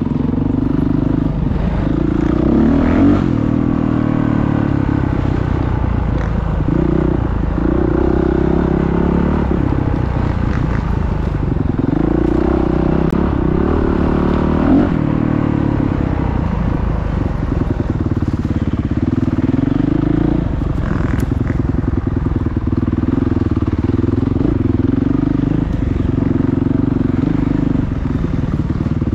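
Motocross motorcycle engines running at speed, their pitch rising and falling as they rev, with two quick upward revs about three seconds in and again about fifteen seconds in.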